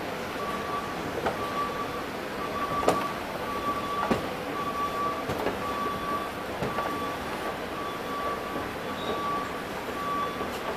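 Kone escalator running under a rider: a steady mechanical hum with a short squeak repeating about every three quarters of a second, and a few faint clicks.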